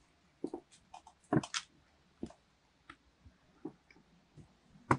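Steel parts of an AK rifle clicking and clacking as it is field-stripped by hand on a table: a string of irregular clicks and knocks, the loudest about a second and a half in and just before the end.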